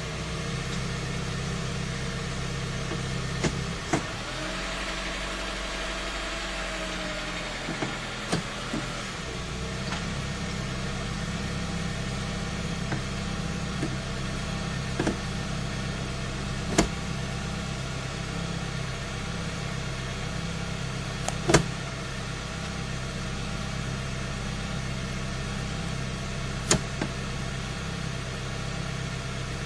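Honda CR-V's 2.4-litre four-cylinder engine idling steadily, heard from inside the cabin, while the freshly refilled automatic transmission is shifted through each of its gears with the brakes held. Sharp clicks from the gear selector come every few seconds, and the engine note changes for several seconds early on as a gear is engaged.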